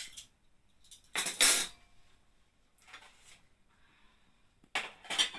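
Metal cutlery and dishes clattering as a table is set: a clatter of forks and spoons put down about a second in, and another short clatter near the end.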